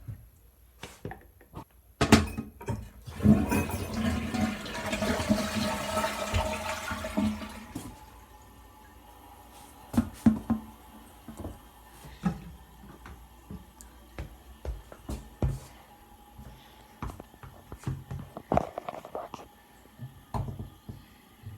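Toilet flushing: a loud rush of water starting about two seconds in and dying away after about six seconds, followed by scattered light knocks and clicks.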